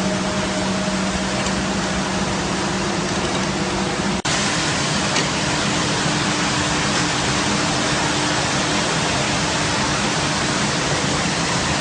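Industrial carpet washing machine running: a steady rushing noise with a motor hum. About four seconds in it breaks off for an instant and resumes as a slightly brighter rush with a higher hum.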